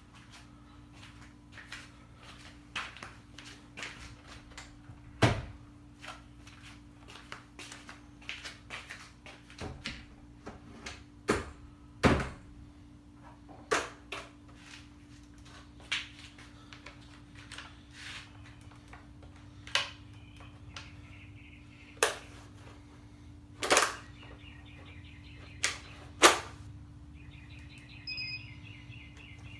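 A series of irregular sharp knocks and clicks, a few seconds apart, over a steady low hum, with birds chirping near the end.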